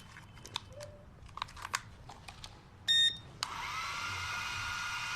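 A few light plastic clicks, then a short electronic beep about three seconds in, after which the drone's motors start and spin its propellers with a steady whir, the test after a motor replacement.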